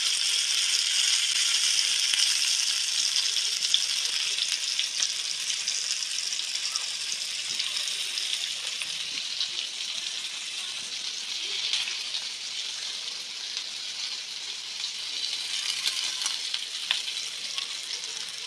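Chicken tikka skewers sizzling in hot oil in a frying pan: a steady frying hiss with scattered crackles, easing off gradually.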